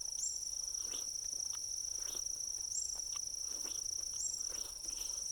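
Insects trilling in one steady, unbroken high-pitched tone, with a few faint clicks and rustles scattered through it.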